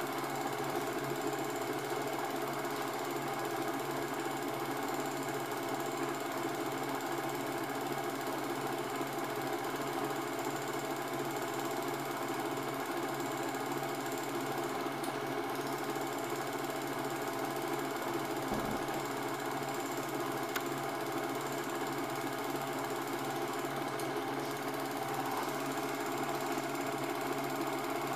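Cine film projector running with a steady mechanical whirr that does not change.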